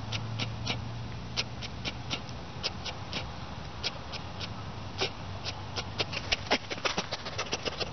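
Dry straw and leaves crackling in short, irregular clicks that come more often toward the end, over a faint low hum.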